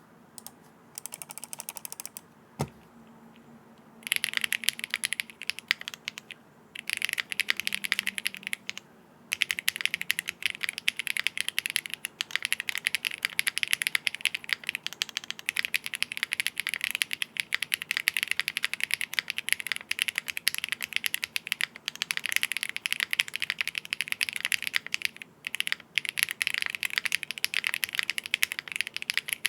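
Fast typing on a Bakeneko60 mechanical keyboard with stock Kailh BCP switches on a polypropylene plate, O-ring mounted with no foam. After a few scattered keystrokes and one sharp click, it settles into continuous typing with a few brief pauses.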